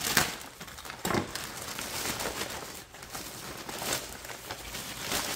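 Plastic poly mailer bag being slit with a knife and torn open by hand, its thin plastic crinkling and rustling, with a few sharper, louder rustles.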